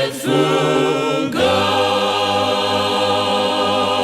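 Choir singing a hymn in several voice parts, the word "faithful" drawn out, then a long held chord that starts about a second in.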